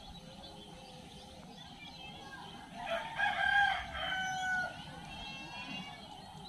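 A rooster crowing once, a call of about two seconds near the middle.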